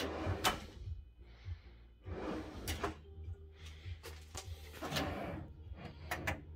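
Sliding metal front panel of a Klarstein Mariana 60 telescopic range hood being pushed and pulled, with short sliding noises and several sharp clicks and knocks as it moves and meets its stops.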